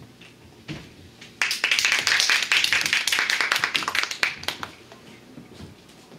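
Audience applauding: a burst of many hands clapping that starts about a second and a half in and dies away after about three seconds.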